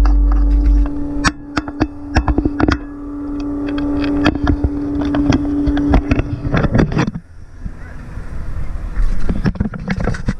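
Demolition-derby car's 355 V8 idling through open headers with a steady drone, under scattered sharp knocks and clicks; the engine cuts off about seven seconds in. The driver thinks this engine is probably shot.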